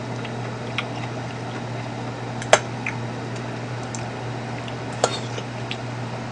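A few light clinks of a metal spoon and chopsticks against ceramic bowls during a meal, the sharpest about two and a half seconds in and another near five seconds, over a steady low hum.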